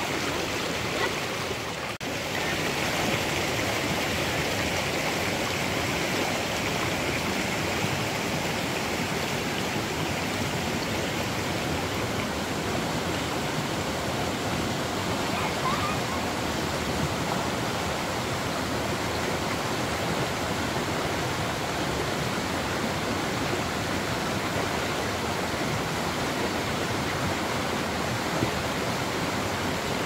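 Steady rushing of river water, with a brief break about two seconds in.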